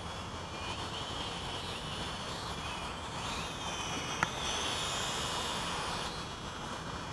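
Small quadcopter's motors and propellers whining overhead, the pitch rising and falling as the throttle changes, with a single sharp click about four seconds in.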